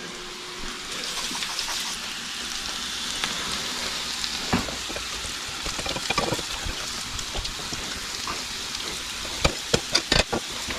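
Chopped red potatoes frying in oil in an uncovered pan: a steady sizzle, with a few sharp clicks and a cluster of knocks near the end.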